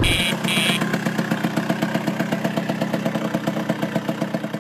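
Scooter engine idling with a fast, even putt-putt pulse, after two short high beeps near the start.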